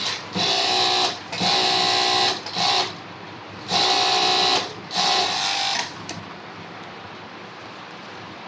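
Industrial 2-needle 5-thread overlock sewing machine (EPZ V5-5UT) stitching at high speed in five short runs, each under a second, with brief stops between. It goes quiet about six seconds in.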